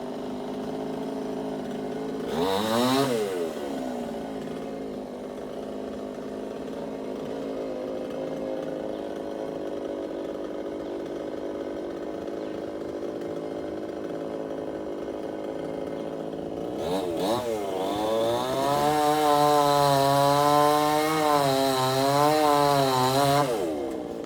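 Chainsaw engine idling steadily, blipped once briefly about three seconds in. Near the end it is revved up and held high for about six seconds, the pitch wavering, then drops back to idle.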